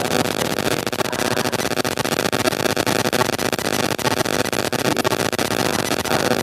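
A man's voice lecturing into a microphone, nearly buried under loud, steady hiss.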